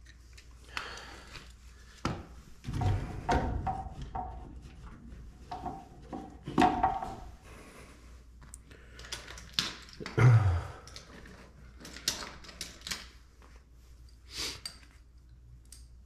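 Hands working inside a gas furnace cabinet, fitting a hot surface ignitor up into the burner assembly: scattered clicks, knocks and rubbing of metal and wiring, with heavier thumps about three seconds and ten seconds in.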